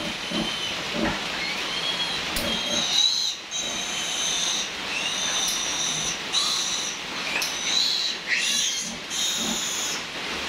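Newborn piglet squealing while held for teeth clipping: a nearly unbroken run of shrill, high-pitched squeals, each up to about a second long, some rising and falling.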